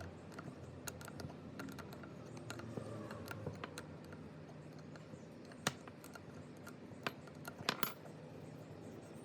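Irregular light clicks and small metallic clinks of small hard parts being handled and set down, with a few sharper clinks a little past halfway and a quick cluster of three near the end.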